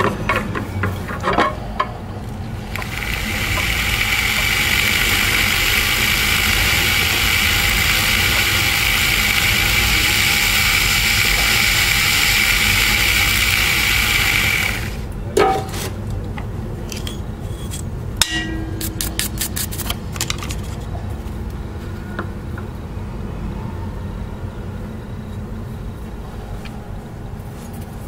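A rotary carving tool with a small bur runs steadily for about twelve seconds as it cuts detail into carving wax, then stops suddenly. Afterwards come scattered light clicks and scratches as a hand carving tool scrapes the wax.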